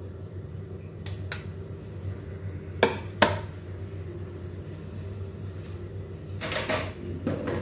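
A few sharp clinks of a metal spatula knocking against a steel wok, the two loudest about three seconds in, over a steady low hum, with a short rustle near the end.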